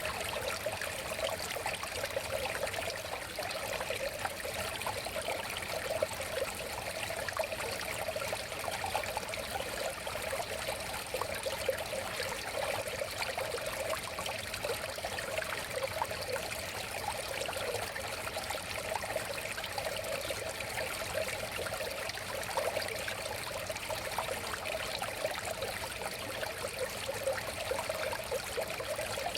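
A river flowing, a steady babbling and splashing of water with no change.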